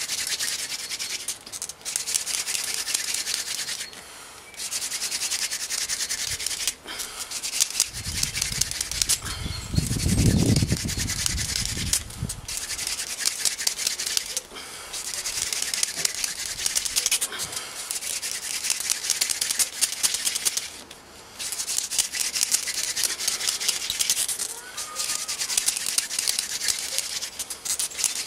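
Hand-drill friction fire: a mullein spindle spun between the palms on a linden hearth board, making a dry rubbing hiss broken by short breaks every few seconds. A low rumble lasts a few seconds from about eight seconds in.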